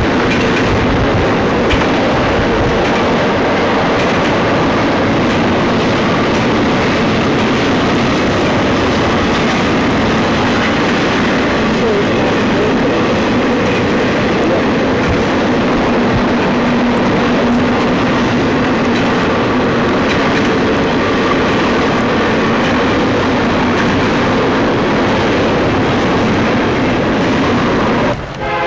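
Double-stack intermodal freight train cars rolling past close by: a loud, steady rush of steel wheels on the rails that holds the same level throughout.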